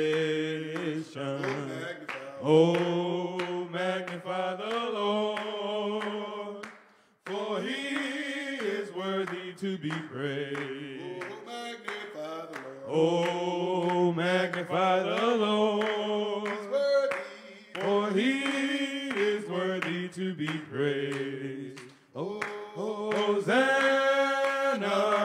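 Small group of men's voices singing a worship song a cappella in harmony, in long sung phrases with a couple of brief breaks between them.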